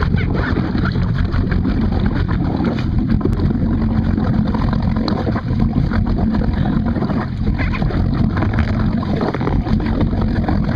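Water slopping around a water ski sitting low in the lake, with a tow boat's motor running, picked up by a camera mounted on the ski just above the surface.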